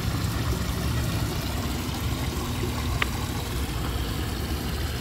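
Steady noise of running water with a low rumble underneath, and one short high click or chirp about three seconds in.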